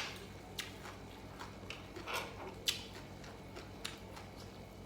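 Close-up eating sounds: a few sharp clicks and a short crunchy bite about two seconds in.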